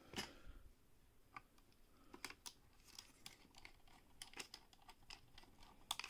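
Faint, irregular small clicks and ticks of a precision screwdriver and tiny screws being worked into a netbook's chassis.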